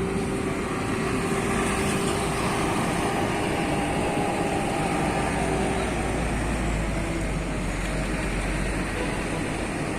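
Steady city street traffic, vehicle engines and tyre noise going by; an engine note fades out about six seconds in as a deeper rumble grows.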